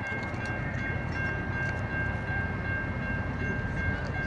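Norfolk & Western steam-hauled passenger train rumbling along the track as it moves away, with a steady high-pitched whine over the rumble.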